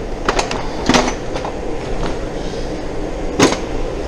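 A few short scrapes or knocks of a hand tool on the freshly drilled plastic fender, cleaning loose plastic from the edges of the holes, over steady background noise.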